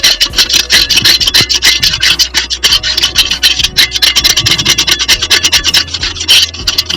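Rapid, repeated scraping strokes as hard limescale deposits are scraped off the inside of a small electric water heater's tank.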